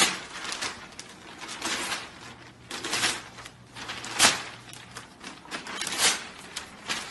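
Newspaper rustling and tearing as a golden retriever bites and pulls at the sheets, in irregular crackling strokes with the sharpest one a little after four seconds in.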